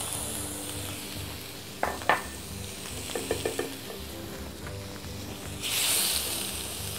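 Raw shrimp sizzling in hot olive oil in a frying pan as they are tipped in, shaken and stirred with a spoon, with a couple of metal clinks about two seconds in. The sizzle grows louder near the end.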